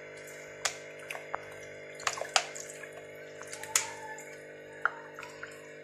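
A plastic ladle stirring hot chicken broth in a non-stick pan: liquid sloshing, with several sharp taps as the ladle knocks against the pan, over a steady low hum.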